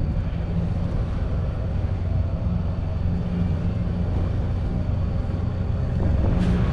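Volvo Penta D2-75 four-cylinder marine diesel of a sailing yacht running steadily under load at just under 2,000 RPM, driving a saildrive with a fixed three-blade propeller, the boat making about 5 knots.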